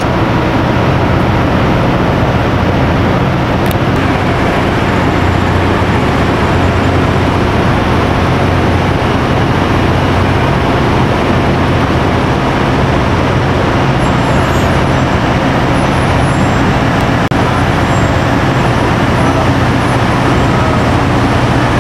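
Steady drone of heavy machinery running, with a constant low hum.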